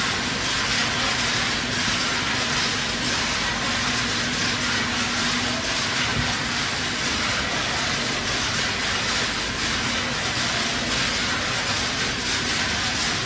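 Steady foundry machinery noise, an even loud hiss and rumble with a faint steady hum running under it.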